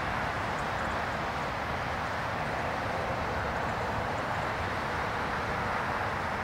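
Twin-engine widebody jet's engines running at high power on the runway: a steady, even rushing noise with no clear tone.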